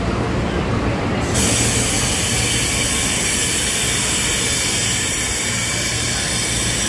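Passenger train rolling through the station with a low rumble, joined about a second in by a sudden, sustained high-pitched metallic squeal from the train's steel wheels and brakes.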